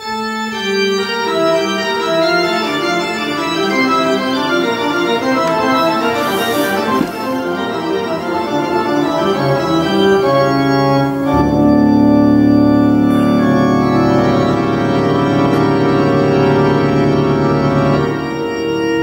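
Recorded music played through a homemade stereo valve amplifier with EL34 output tubes (Mullard 5-20 design) and out of its loudspeakers: long held chords whose notes change in steps, with a fuller, louder chord coming in about eleven seconds in.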